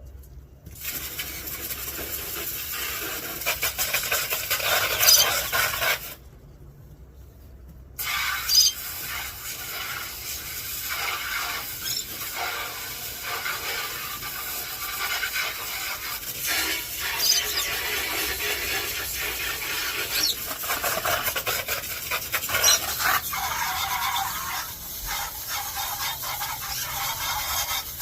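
Hose spray nozzle blasting a jet of water onto the enclosure and nest box, a steady hiss that cuts off for about two seconds and then starts again.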